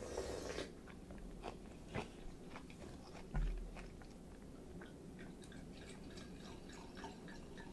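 Close-miked eating sounds: a noisy slurp of chilled ramen broth from a wooden spoon at the start, then chewing with many small wet clicks. A single low thump about three and a half seconds in is the loudest sound.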